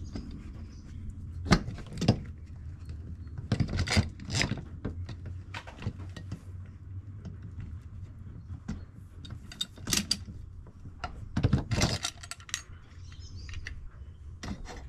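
Metal clicks, knocks and light rattles of the aluminium arms and brackets of a Thule Elite G2 motorhome bike rack as they are handled and seated on the rear-wall rail: scattered sharp knocks, with clusters around a second and a half in, near four seconds, near ten and near twelve, over a low steady rumble.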